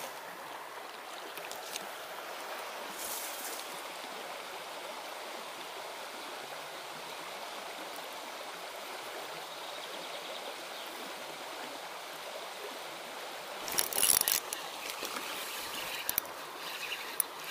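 Steady rush of a small river's current over a shallow, rippling stretch. About fourteen seconds in, a short cluster of knocks and rustles breaks in, and a few more clicks follow near the end.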